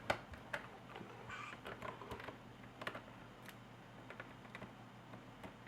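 Small screwdriver clicking and ticking on the tiny screws of a Lenovo IdeaPad S210T's plastic bottom panel, in light, irregular taps, the sharpest just after the start.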